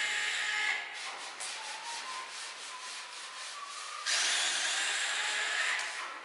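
Rough rubbing and scraping on capacitor cans as they are handled and worked on by hand, in two spells: one in the first second, and a louder one from about four seconds in until shortly before the end. In between, fainter light ticks.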